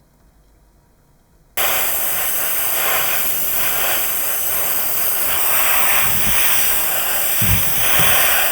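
A pressurised spray hissing steadily. It starts abruptly about a second and a half in and cuts off sharply at the end.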